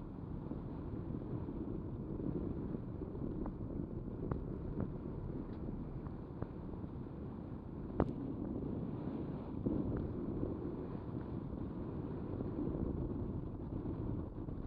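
Steady low rumble of wind on the microphone and the whale-watching boat at sea, with a few faint ticks, the sharpest about eight seconds in.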